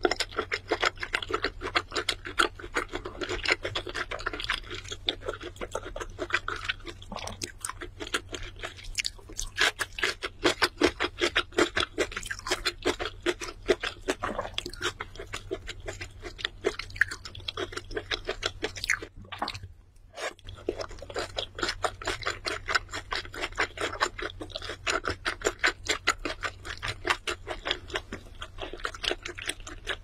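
A person chewing food: a dense run of small, quick mouth clicks and crackles, with a pause of about a second two-thirds of the way through.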